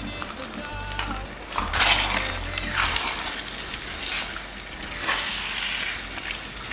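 Shrimp and bell-pepper stir-fry sizzling in a hot frying pan as a corn flour and water slurry is poured in and stirred with a spatula. The sizzle surges twice, about two seconds in and again about five seconds in.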